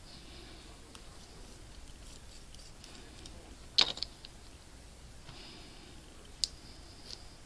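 Small sharp clicks from handling metal circular knitting needles and a small plastic bag of parts: the loudest a little under four seconds in with a lighter one just after, another about six and a half seconds in.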